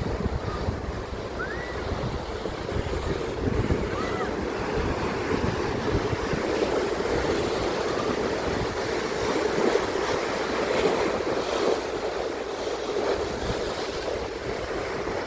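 Ocean surf breaking and washing steadily against the shore, with wind buffeting the microphone in the first few seconds. Two faint short rising chirps come about a second and a half and four seconds in.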